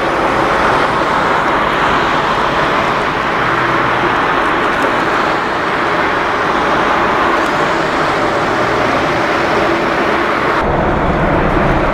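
Boeing 787-9's twin turbofan engines running as the airliner rolls along the runway: steady, loud jet noise. Near the end the sound switches abruptly to a deeper rumble.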